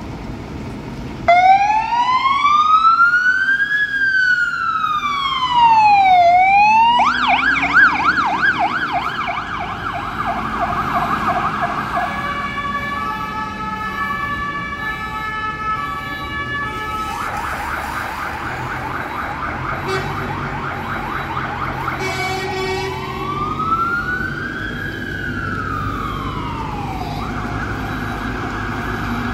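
Scania P360 fire engine leaving on an emergency call, its siren starting about a second in with a slow rising and falling wail, then switching to a fast yelp. Between the yelps come several seconds of steady blaring air horn tones, then another slow wail and a fast yelp again, over the noise of street traffic.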